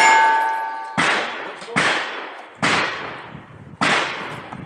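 Four gunshots at uneven intervals of about a second, each with a long echoing tail. In the first second, a steel target struck just before is still ringing and fading out.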